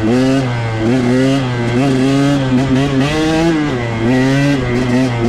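Two-stroke single-cylinder engine of a 2021 KTM 125 XC dirt bike being ridden, revving up and dropping back under throttle, its pitch rising and falling about once a second.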